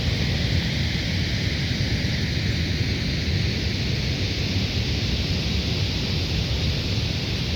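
Goðafoss waterfall's water crashing down: a steady, unbroken rush with a deep rumble underneath.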